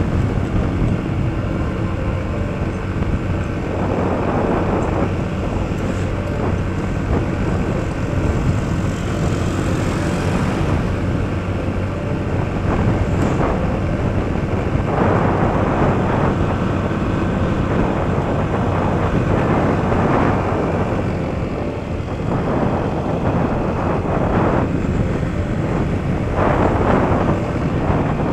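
Yamaha NMAX motor scooter running steadily while ridden along a road, with wind noise on the microphone swelling at times.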